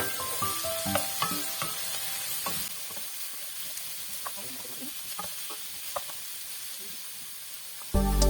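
Food frying in oil in a pan, a steady sizzle with a few light clicks. Soft background music plays over the first part, and loud music starts near the end.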